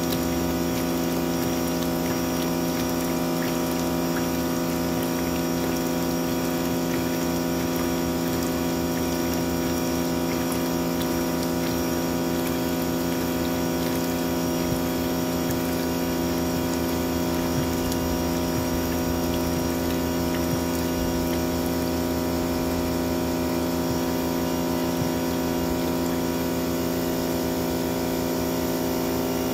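Sun Joe SPX3000 electric pressure washer running steadily with a constant hum, driving a sewer jetter hose that is clearing a clogged kitchen drain line. Dirty water gushes out of the drain pipe into a plastic tub.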